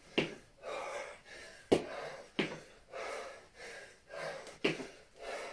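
A man breathing hard from the exertion of kettlebell reps: noisy breaths in and out, with a few sharp, forceful exhales spaced a second or two apart.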